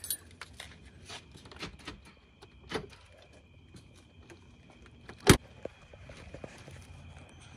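Scattered light clicks and knocks, with a sharper knock almost three seconds in and one loud knock a little past five seconds in. A faint high steady tone runs underneath from about three seconds in.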